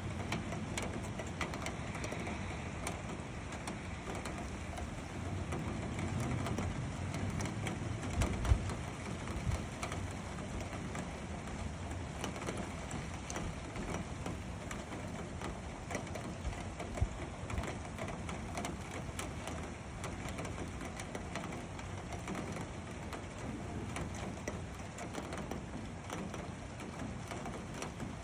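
Rain falling in the wind: a steady hiss of rain with many scattered drop ticks over a low, uneven wind rumble, and a couple of brief louder knocks about a third and halfway through.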